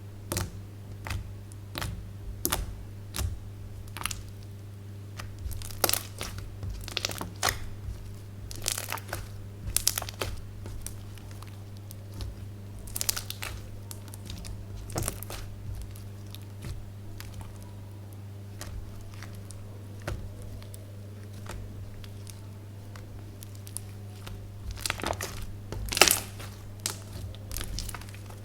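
Hands squeezing and stretching slime, giving irregular sticky pops and crackles, over a steady low hum.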